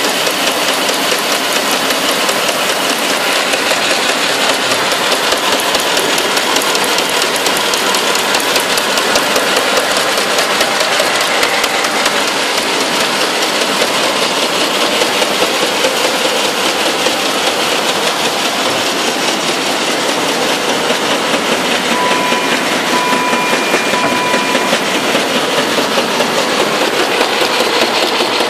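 MBO K55/4-KTL paper folding machine running at speed: a steady, fast, even mechanical clatter from its feeder, rollers and folding section.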